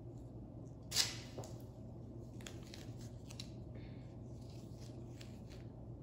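White tape being torn and pressed down onto a countertop. A short rip about a second in is followed by faint crinkles and light taps as the strip is smoothed down, over a low steady hum.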